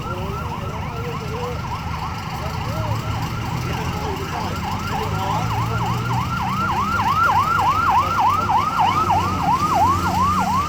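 Emergency vehicle siren in a fast yelp, its pitch sweeping over and over about three times a second, growing louder through the second half, over a low engine rumble.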